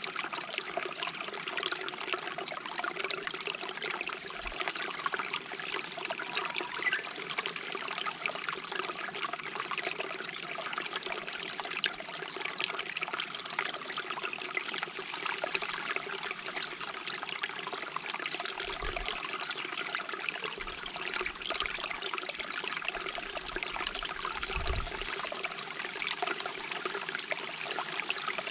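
Shallow stream babbling and trickling steadily, an even rush of running water without a break.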